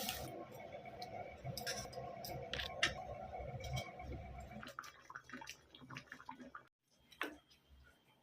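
Scattered light clicks and taps of kitchen utensils, over a faint steady hum that stops a little past halfway.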